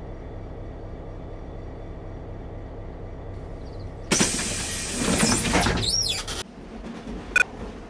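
Steady low rumble of a train carriage interior. About four seconds in, the compartment's sliding doors close with a loud swishing whoosh and sweeping high tones lasting about two seconds. A short, sharp click follows near the end.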